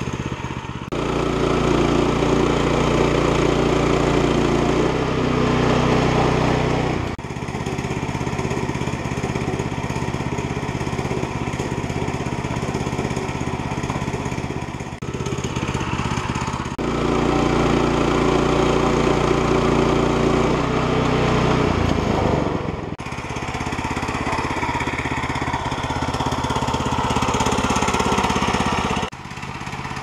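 Woodland Mills HM122 portable band sawmill's small gas engine running steadily at speed while the mill head is pushed along a log to saw it. The sound shifts abruptly in level several times and drops away about a second before the end.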